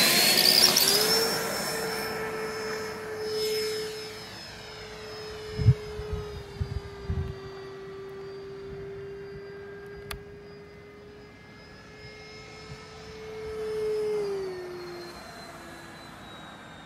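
90mm electric ducted fan of a FlyFly F-86 RC jet whining steadily at high throttle through the takeoff run and climb-out, growing fainter as the plane flies away; its pitch dips about fourteen seconds in. A few low thumps come around six to seven seconds in.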